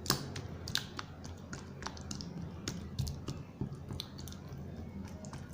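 A spoon stirring a thick mix of shampoo and margarine in a bowl, with irregular small clicks and taps of the spoon against the bowl as the lumps are worked out.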